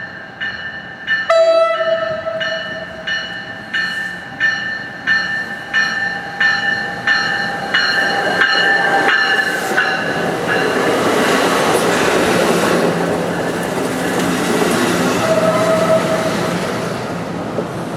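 NJ Transit train approaching: a short horn blast about a second in and a bell ringing about twice a second. From about ten seconds on, loud rolling wheel-and-rail noise of the train passing takes over.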